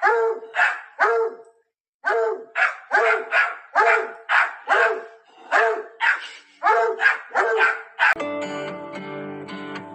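A dog barking over and over, about two barks a second, with a short pause after the first three. Guitar music comes in near the end.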